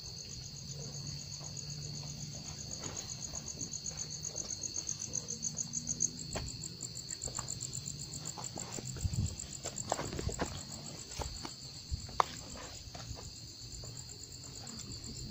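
Crickets chirping steadily and high-pitched, with scattered footsteps and rustling through grass and dirt around the middle.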